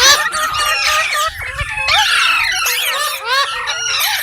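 Green parrots (rose-ringed parakeets) chirping and screeching in a rapid, unbroken stream of short, overlapping calls that rise and fall in pitch.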